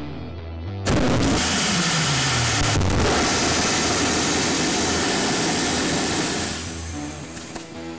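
Hybrid rocket engine firing: a sudden loud roar starts about a second in and holds steady for about five seconds, then dies away near the end. A pitch slides down in the roar's first two seconds.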